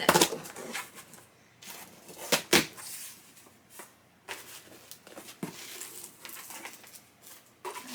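A taped cardboard shipping box being opened by hand: a handful of sharp knocks and taps, with light rustling of cardboard and tape in between.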